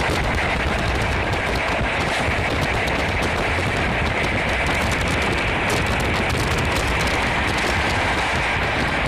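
Passenger train running through a rail yard, heard from inside the carriage: a steady rumble and hiss with rapid, irregular rattling clicks from the wheels over rail joints and points.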